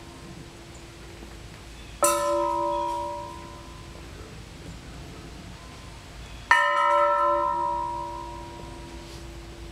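Rocking metal bell made from an old nitrogen tank ringing twice as it swings, about two seconds in and again about six and a half seconds in. Each stroke rings with several clear tones that fade over a couple of seconds, and the second has a brief rattle as it strikes.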